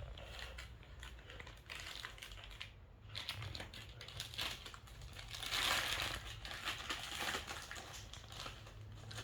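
Plastic bag crinkling and rustling in irregular crackles as kittens claw and bite at it, tearing it, with a louder burst of crinkling a little past halfway.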